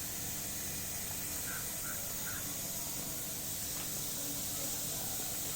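Steady high hiss of outdoor background noise, with three short, quick chirps a little under two seconds in.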